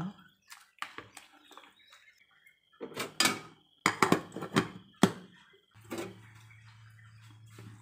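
Rice paddle scraping and knocking against the inner pot of an electric rice cooker as rice in coconut milk is stirred just as it comes to the boil. The glass lid then goes on with a sharp clink about five seconds in.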